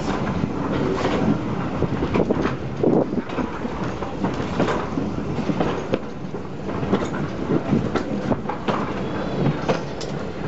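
Heritage railway train running along the track, with a continuous rumble and rattle and irregular clattering knocks from the wheels on the rails.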